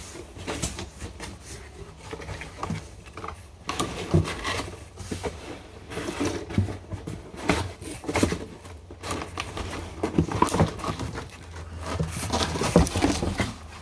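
Cardboard packaging being opened and handled: irregular rustling, scraping and knocks of cardboard, over a low steady hum.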